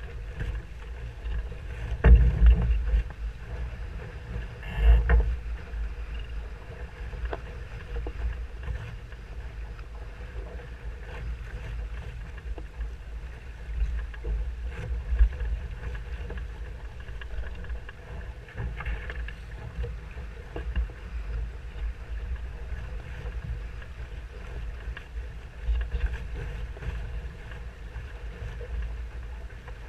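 Water rushing and slapping along the hull of a Musto Skiff dinghy sailing upwind, with wind buffeting the boat-mounted camera's microphone. Two heavier thumps come about two and five seconds in.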